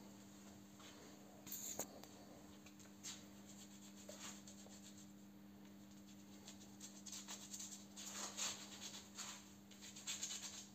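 Faint rubbing and scraping of padded hand wraps gripping a steel bolt as it is bent by hand: a scrape at about one and a half seconds, another at about three, then a longer spell of rubbing over the last four seconds. A steady low electrical hum runs underneath.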